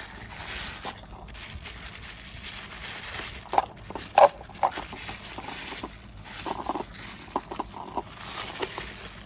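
Rustling and handling noise with scattered sharp clicks and knocks, two louder knocks a few seconds in, as the plastic parts of a baby bottle warmer are unpacked.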